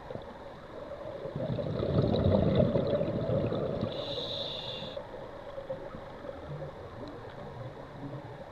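A scuba diver's breathing through the regulator, heard underwater. A rush of exhaled bubbles swells for about three seconds, then a short high hiss of an inhale comes about four seconds in, over a faint steady hum.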